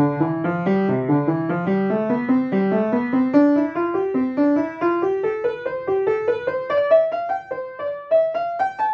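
Upright piano played in a steady string of single notes, about three or four a second, climbing step by step from low to high.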